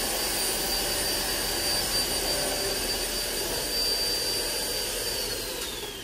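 Hoover ONEPWR Evolve Pet cordless upright vacuum running in bare-floor mode with the brush roll shut off: a steady suction rush with a high motor whine. About five seconds in it is switched off, and the whine falls in pitch as the motor winds down.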